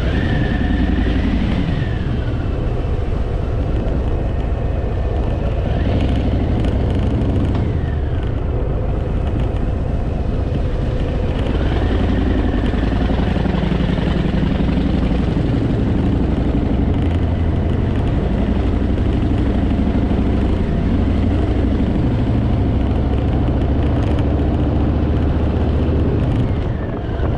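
Harley-Davidson Fat Boy's V-twin engine running steadily under way, its revs rising and falling as it rides a winding mountain road.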